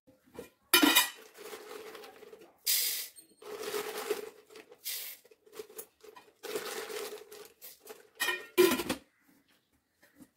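Dry split lentils poured in several bursts into an empty aluminium pressure cooker, pattering and rattling against the metal, with a plastic bag rustling.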